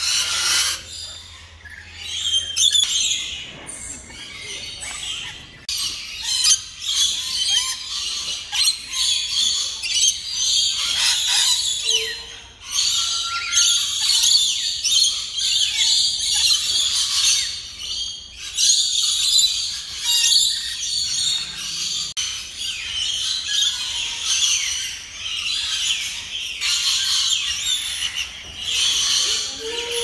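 A flock of rainbow lorikeets calling, with many shrill, high-pitched squawks and chatter overlapping without pause.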